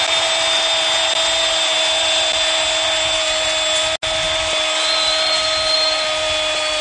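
A football commentator's long, drawn-out goal shout held on one steady note over a cheering stadium crowd.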